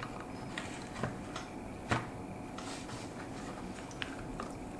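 Scattered small clicks and taps of parts being worked by hand on a Stihl MS271 chainsaw's fuel tank and handle assembly, with one sharper click about two seconds in.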